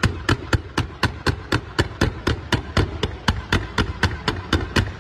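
Fireworks: a fan of comet shots launched from the ground in quick succession, each launch a sharp report at an even pace of about four a second.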